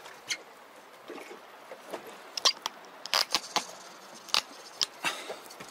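Irregular light clicks and knocks, about a dozen, spread unevenly over a faint steady hiss.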